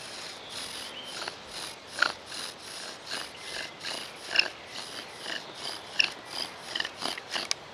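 Bow drill in use: the wooden spindle squeaks and rasps in the notch of a wooden fireboard with each stroke of the bow, about two strokes a second, a little quicker near the end.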